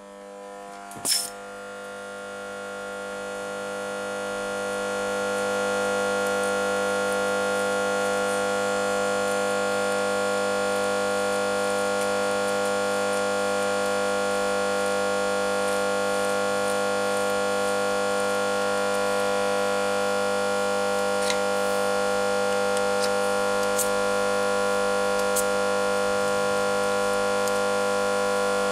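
A sharp click about a second in, then a loud steady mechanical hum of several fixed tones that swells over the next few seconds and holds unchanged, with a few faint ticks later on.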